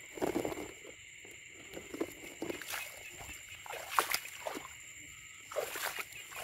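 Footsteps wading through shallow water in flooded grass, splashing every second or two, the loudest about four seconds in. Behind them runs a steady high-pitched chorus of calling frogs and insects.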